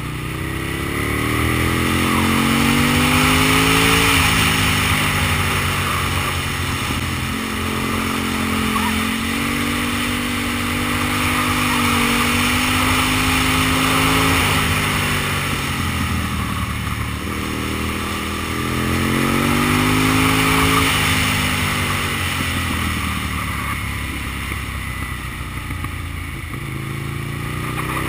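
Aprilia Tuono motorcycle's 60-degree V-twin engine pulling hard through a run of curves. Its pitch climbs over the first few seconds, drops, holds steady for several seconds, then falls away around the middle. It climbs again before backing off, and starts rising once more near the end, over a steady rush of wind.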